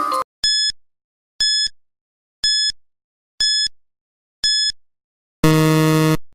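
Quiz countdown timer sound effect: five short high beeps about a second apart, then a longer, lower and louder buzzer as the count reaches zero, signalling that time is up.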